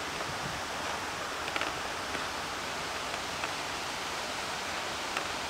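Steady, even outdoor background noise with a few faint ticks.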